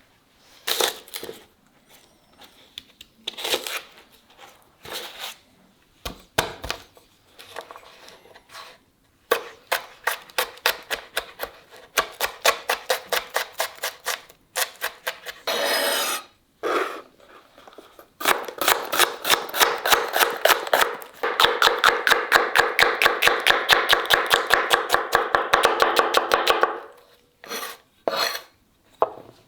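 Knife chopping on a cutting board: a few separate strokes at first, then long runs of rapid, even chops, about four or five a second, that grow denser in the second half.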